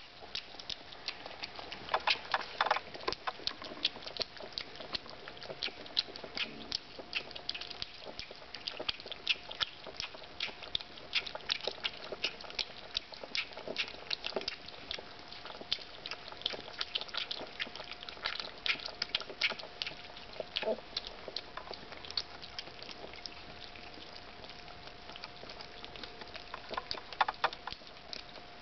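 Cesky terrier puppies lapping a milky first feed from a metal bowl: a fast, irregular run of tongue clicks and laps. A faint steady hum runs underneath.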